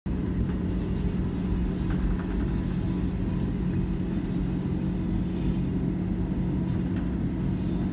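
Airbus A321 cabin noise while taxiing, heard inside the cabin: the jet engines at low taxi power make a steady low hum over the rumble of the rolling aircraft.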